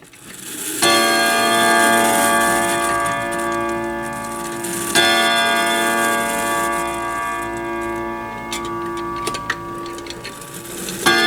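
Grandfather clock striking its chime on its own, without being pushed: three struck strokes about four to six seconds apart, each ringing on long with many overtones. The clock's ticking is faint in between.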